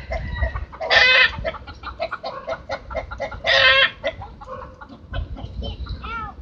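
Chickens clucking in a quick run of short calls, with two longer, louder squawks about a second in and about three and a half seconds in, and a wavering call near the end.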